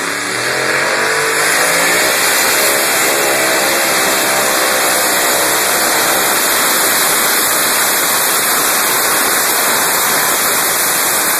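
A pulling tractor's engine revs up over the first couple of seconds, then runs loud and steady at full throttle while it drags a weight-transfer sled down the pull track.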